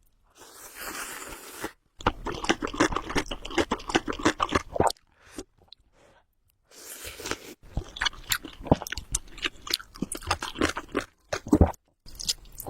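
Close-miked eating of spicy ramen: rapid wet chewing clicks and smacks. Two longer hissing stretches of about a second each interrupt them, one at the start and one about halfway through.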